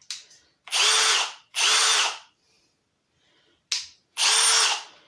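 Milwaukee M18 Fuel Surge hydraulic impact driver spinning freely in short trigger pulls: a steady motor whine in three runs of under a second each, with two quick blips between, and no impacting.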